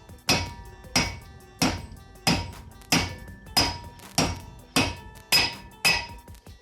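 Hammer striking a drift to drive a new bearing outer race into a Daewoo Sens/Lanos rear brake drum: ten even blows, each with a short metallic ring, about one every 0.6 seconds.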